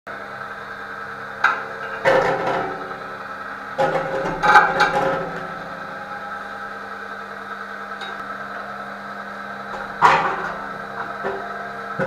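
A steady electrical hum, with metal clanks and knocks from a metal bucket and sheet metal being handled in a concrete shaft. There are clusters of knocks about a second and a half in, around four to five seconds in, and again near ten seconds.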